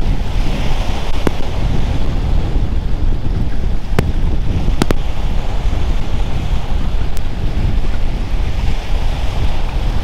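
Surf washing on a beach, with strong wind buffeting the microphone in a steady rumble. A few sharp clicks come through.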